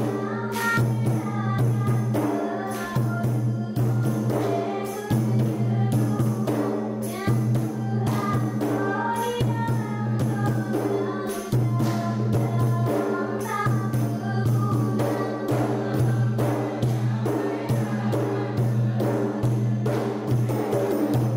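Saman dance body percussion: a group's rapid, tightly synchronised hand claps and body slaps, with group singing over a steady low drone.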